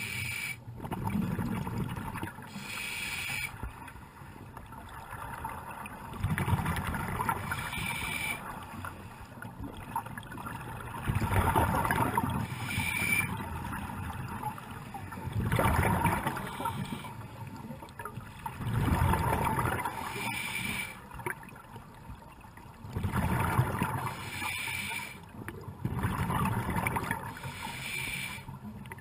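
Scuba diver breathing underwater through a regulator. A short hiss on each inhale is followed by a gurgling rush of exhaled bubbles, repeating about every four to five seconds.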